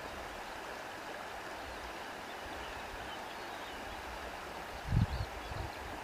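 Steady rushing of flowing water, with a brief low rumble about five seconds in.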